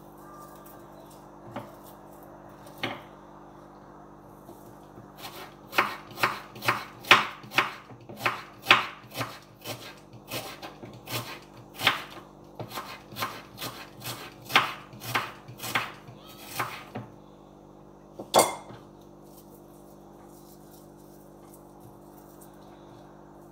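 Knife chopping an onion on a wooden cutting board: a quick run of sharp knocks, about two a second, for some ten seconds, then one last louder knock.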